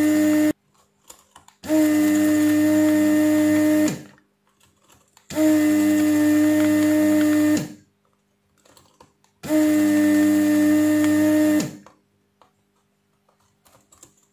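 Vacuum pump of a Weller WR3M rework station's desoldering gun running in bursts with a steady hum, switched on each time to suck molten solder from the through-hole pins. It stops about half a second in, then runs three more times for about two seconds each, with short pauses between.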